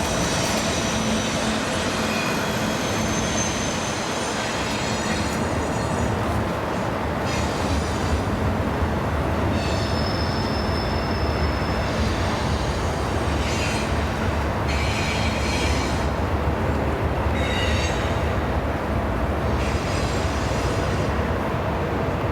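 Train rolling past with a steady rumble of wheels on rail, and high-pitched wheel squeals coming and going every few seconds.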